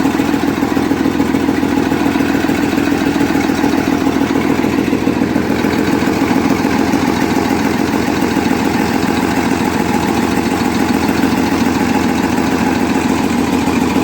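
Scania 111's six-cylinder diesel engine idling loudly and steadily, with its timing gear train uncovered after being set to injection timing.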